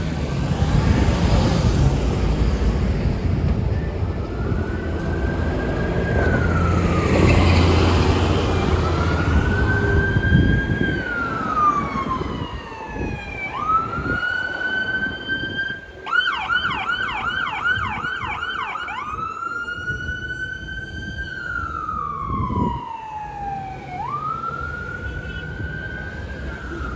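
Emergency vehicle siren in wail mode, each sweep rising quickly and falling slowly over about three seconds, switching to a fast yelp of about three to four warbles a second for roughly three seconds midway, then back to the wail. Heavy traffic and engine rumble fills the first ten seconds.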